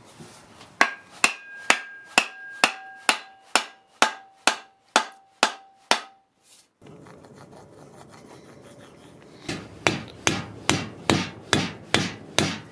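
A wooden mallet striking the end of a hickory axe handle again and again, about two blows a second, driving the broadaxe head on tight; in the first run a ringing note hangs on between the blows. After a short pause, a second run of mallet blows on the handle end where it comes through the eye of the head.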